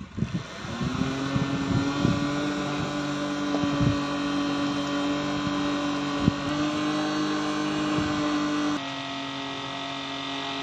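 Small DC motor of a homemade mini fan with a green plastic propeller, spinning up within the first second and then running with a steady hum, with a few light ticks. The level drops near the end.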